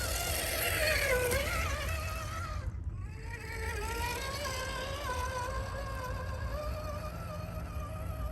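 Electric motor and gearbox of an RC scale crawler truck whining as it drives. The pitch rises and falls with the throttle, and it cuts out briefly about three seconds in before picking up again.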